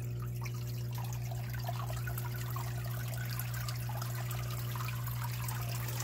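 Water trickling and dripping into a sump pit as it fills, over a steady low hum.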